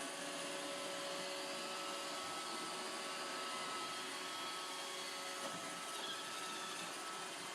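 Roomba robot vacuum running steadily: an even whirring hiss with a faint steady whine.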